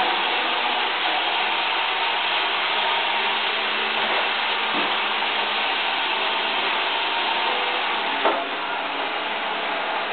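Robotic vacuum cleaner running with a steady whirring hum, with one brief knock about eight seconds in.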